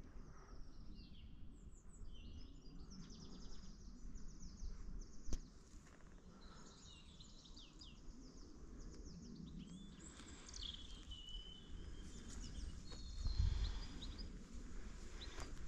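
Several birds singing and chirping in the trees, a busy mix of short calls and trills, over a low rumble that swells briefly near the end.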